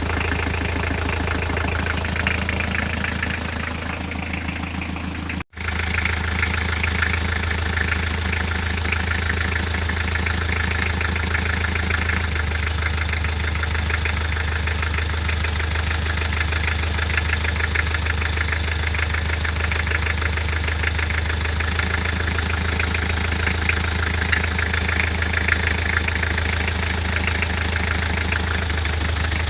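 Engine of a C1 small car idling steadily with a knocking noise whose cause the owner does not know. The sound drops out for an instant about five seconds in, then carries on unchanged.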